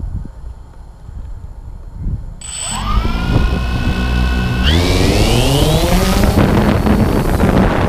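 A multirotor drone's electric motors spin up about two and a half seconds in with a rising whine, climb in pitch again near five seconds as the drone lifts off, then run steadily under a loud hiss of propeller wash.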